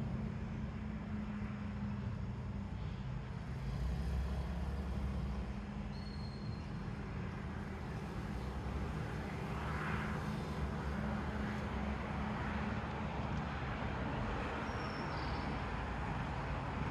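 Steady rumble of distant city traffic and engines with a low hum, and two brief high squeals, about six seconds in and near the end.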